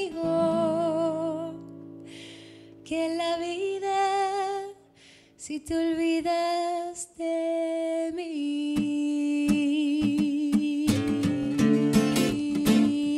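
A woman singing long, held notes with vibrato, backed by acoustic guitars. The guitars strum harder and fuller about two-thirds of the way through.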